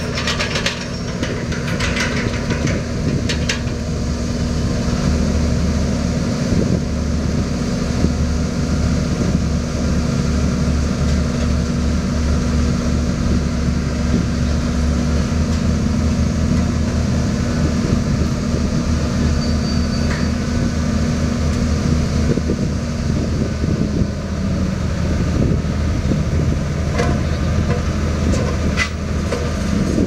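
Vibratory pile hammer running, shaking a concrete sheet pile down into the ground: a loud, steady, heavy mechanical hum whose pitch shifts about halfway through and again later on.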